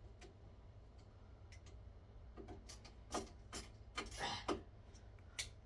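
Faint handling noise from ceiling fan blades and their hardware: scattered light clicks and taps, and a short scrape about four seconds in, over a low steady hum.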